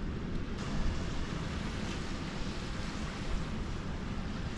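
Steady wind blowing across the microphone, with small waves washing onto a sandy shore.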